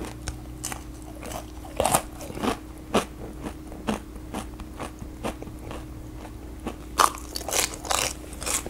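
Close-miked chewing of a batter-fried, syrup-soaked Indian sweet: irregular crisp crunches of the fried batter shell mixed with softer wet chewing, loudest about two seconds in and again near the end, over a low steady hum.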